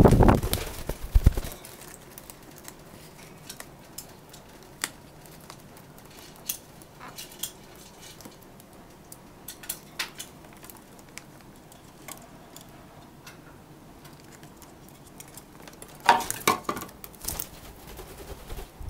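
Red-breasted parakeet tugging at plastic snack bags in a cardboard box: a loud crinkling rustle at the start, then scattered light taps and clicks, and another short burst of rustling and noise about sixteen seconds in.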